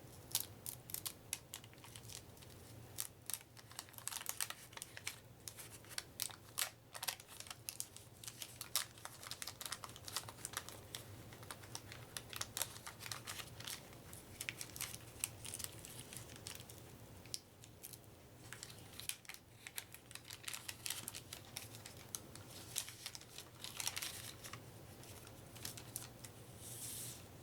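Paper wrapper of a trading card pack crinkling and tearing as it is opened, and the cards inside handled: a long run of small crackles and clicks.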